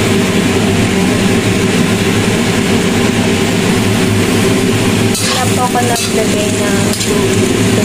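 Chopped Chinese cabbage stir-frying in a wok: a steady hiss over a constant low hum, with spatula scrapes against the wok about five and six seconds in.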